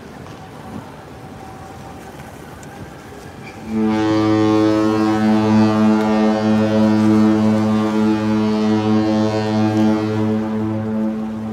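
Cruise ship's horn sounding one long, deep, steady blast of about seven and a half seconds, starting about four seconds in: a ship's departure signal at sailaway. Before it, wind on the microphone and waves washing against the rocks.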